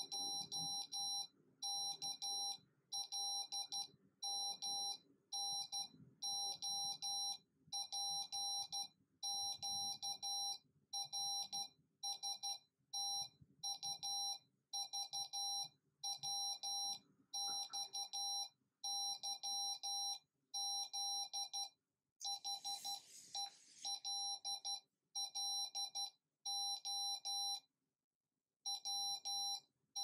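Morse code tones from a small 8-ohm speaker driven by an Arduino, one steady-pitched beep keyed on and off in short dots and longer dashes, spelling out the alphabet letter by letter and then "hello w…". A brief rustling hiss sounds about three-quarters of the way through, and there is a longer gap near the end.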